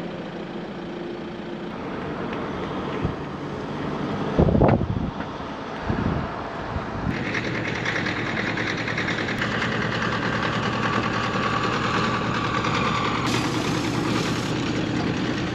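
Motorhome engine running steadily with road and wind noise, broken by two heavy low thumps about four and a half and six seconds in; the tone shifts abruptly twice later on.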